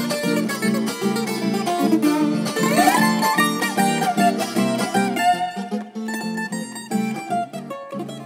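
Duet of a twelve-string Colombian plucked instrument and a six-string classical guitar playing a bambuco: a quick picked melody over strummed chords in a lilting triple rhythm, with a few sliding notes about three seconds in.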